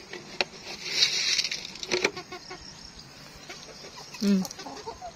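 Backyard native chickens clucking: a few short clucks around two seconds in and a louder short, low call about four seconds in, with a brief rustle about a second in.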